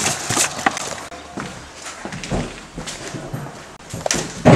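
Footsteps and rattling gear of a person moving on foot: a run of irregular knocks and clicks, with a louder burst of noise near the end.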